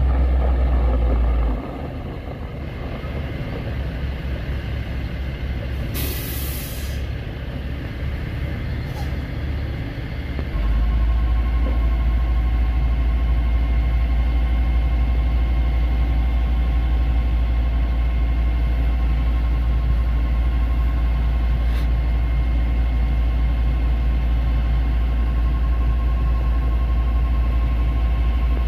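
Caterpillar C7 diesel engine of a Chevrolet C8500 truck running steadily. About six seconds in there is a short loud hiss of air. About ten seconds in the engine gets louder and a steady whine joins it.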